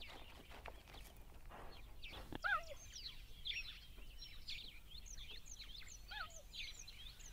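Birds chirping and calling: many short high chirps, with a lower curved call heard twice, about two and a half seconds in and again near the end, over a faint open-air background.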